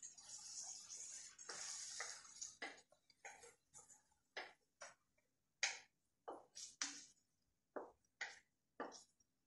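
Beef pieces cooking in a wok, with a faint sizzle at first. Then a string of short, irregular scrapes and knocks as a wooden spatula stirs the meat around the pan.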